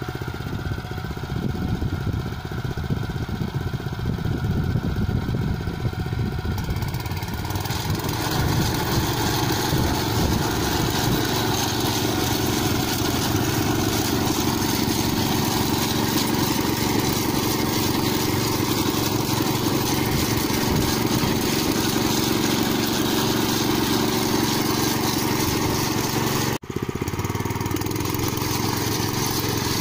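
Small single-cylinder petrol engine running steadily as it drives a walk-behind corn cultivator through the soil. The sound changes in character a quarter of the way in and breaks off for an instant near the end.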